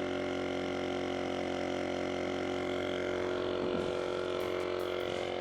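Lasfit Air CR1 battery-powered portable tire inflator running steadily as it pumps up a car tire, its small compressor motor giving an even hum made of several fixed pitches.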